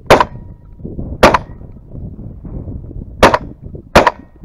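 Shotgun fired four times at close range at uneven intervals: two shots about a second apart, then a pause of about two seconds, then two more under a second apart.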